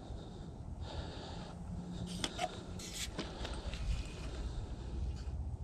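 Wind rumbling on the microphone, with a few short clicks and rustles about two to three seconds in as the fishing rod is picked up and handled.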